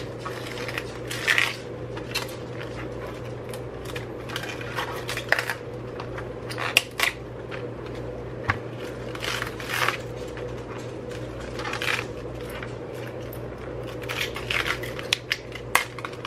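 Outer leaves being snapped and peeled off a head of green cabbage by hand: irregular crisp cracks and rustling, a couple of them sharper, over a steady low hum.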